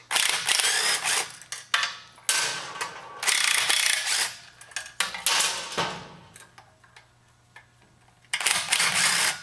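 Power tool with a 6 mm Allen bit running in repeated short bursts of about a second each, with pauses between them, as it backs out the bolts that hold a pressure washer pump in place.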